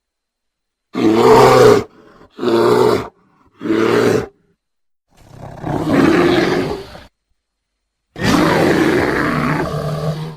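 A bear growling in five separate growls: three short ones in quick succession, then two longer, drawn-out growls, the last one held for about two seconds.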